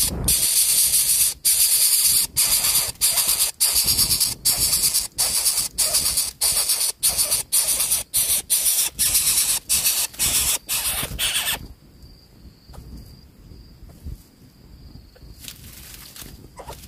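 Coucal nestling giving loud, rapid hissing begging calls, about two to three a second, at the adult bringing food; the calls stop suddenly about eleven and a half seconds in, leaving only a faint steady high tone.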